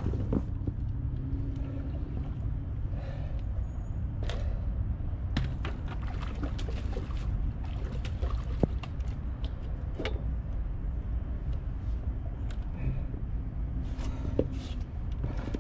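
Scattered clicks, knocks and light water splashing as a small carp is handled and unhooked at the water's edge, over a steady low rumble.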